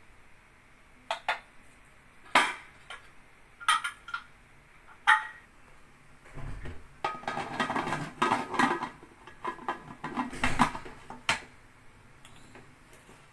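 Aluminium pressure cooker being handled: a few separate sharp knocks and clinks, then from about six seconds in a run of metal clattering and scraping as the lid is set on the pot and locked.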